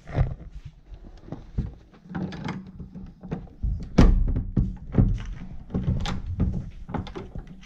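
A round metal door knob being twisted and rattled on a panelled wooden door, the door knocking against its frame several times, loudest about four seconds in: a locked door that needs a key.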